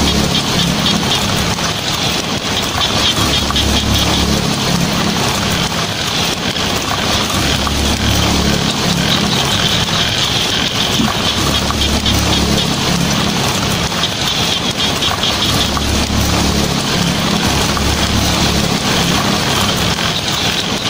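Heavy rain drumming steadily on a tin roof, a dense patter of drops, under a low rumble of thunder that swells and fades every few seconds.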